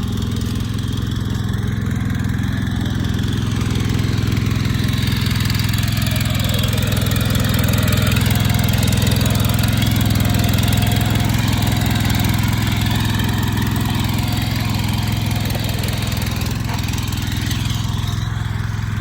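Power weeder's small engine running steadily under load while tilling soil, getting a little louder around the middle.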